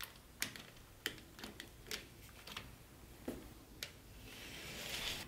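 An HO-scale plastic model railway coach being handled and set on the track, giving a string of small sharp clicks and taps. A soft hiss swells near the end.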